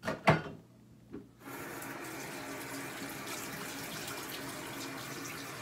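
A loud sharp knock just after the start and a smaller one about a second in, then a bathroom sink tap is turned on and water runs steadily into the basin.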